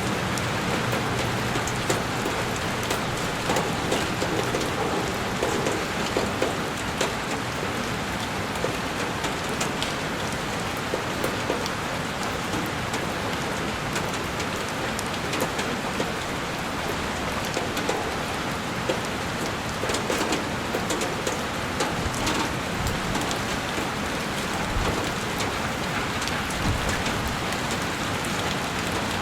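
Heavy rain falling steadily and pattering against a window pane, a dense even hiss broken by many small drop ticks.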